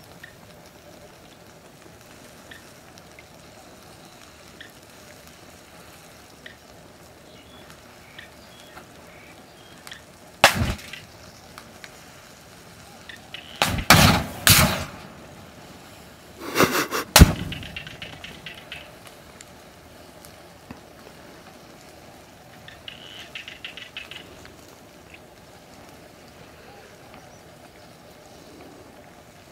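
Disposable butane lighters bursting in a fire with sharp bangs: one about a third of the way in, a quick cluster a few seconds later with a fireball, then two more just after. Between the bangs the fire crackles faintly.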